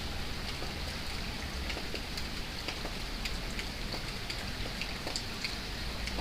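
Steady rain falling, with many separate drops ticking through an even hiss.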